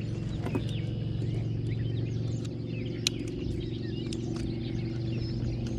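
Birds chirping over a steady low hum, with one sharp click about three seconds in.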